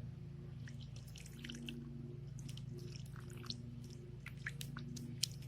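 Wet, sticky slime being handled, giving scattered small squelches and clicks over a steady low hum.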